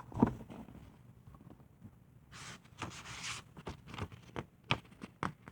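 A picture book being handled and a page turned: a thump just after the start, a papery rustle lasting about a second midway, then a few light knocks.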